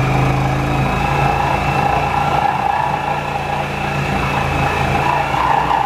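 Corded reciprocating saw (Sawzall) running, a steady motor drone that eases slightly after about a second.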